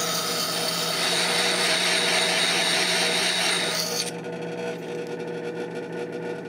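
A small carbide graver's tip grinding on the spinning 600-grit lap of a motorised hone, a steady hiss over the machine's hum as the shaping facet is cut. About four seconds in the grinding stops as the graver is lifted off, and the hone's motor keeps running with a steady hum.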